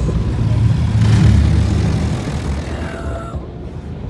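Automatic car wash heard from inside the car: rotating brushes and water spray working over the bodywork make a heavy, steady rumble. The rumble eases off after about two to three seconds.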